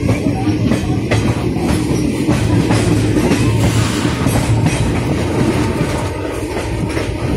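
Passenger train running on the track, heard from aboard a coach: a steady rumble with the wheels clattering over rail joints.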